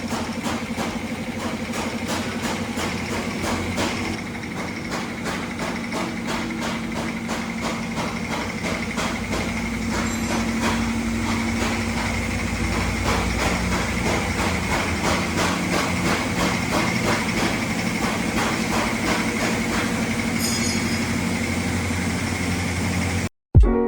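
An engine or motor running steadily, with a fast, regular ticking knock over a constant hum. It cuts off suddenly near the end.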